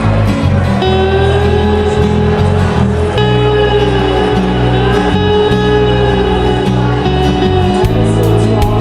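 Background music: a song with guitar, a held melodic line and a steady bass.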